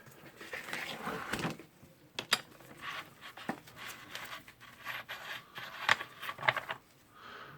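An Allen key working a nut loose on the housing of a rotary hammer: hand-tool handling noise, with scraping and rubbing and several sharp metal clicks and taps.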